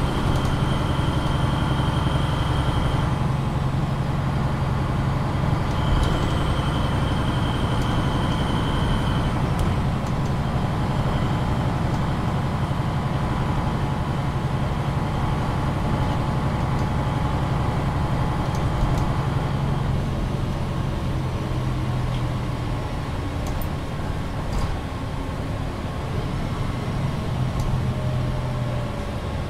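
A MAN NG 313 articulated city bus heard from inside while driving: a steady engine drone with road and cabin noise, and the engine note changes near the end. A high steady tone sounds twice in the first third, each time for about three seconds.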